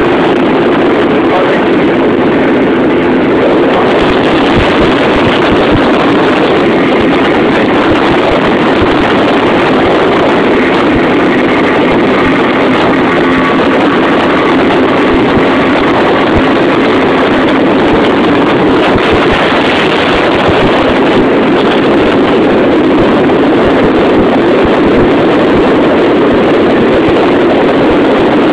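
Motorboat underway: a steady engine drone under the rush of water along the hull, with wind buffeting the microphone.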